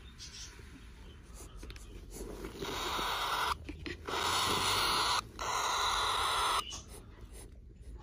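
Baby cockatiels making a raspy, breathy hissing noise that starts about two and a half seconds in and lasts about four seconds, broken twice very briefly. Softer little rustles and peeps come before and after it.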